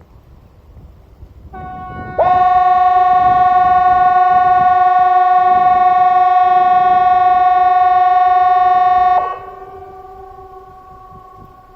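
CA 370 outdoor warning siren sounding one steady, loud two-note tone for about seven seconds. It swells in over about half a second, then cuts down sharply, leaving a much fainter tone at the same pitch. This is one long blast of Sweden's 'Important message to the public' (VMA) signal, sounded in the quarterly siren test.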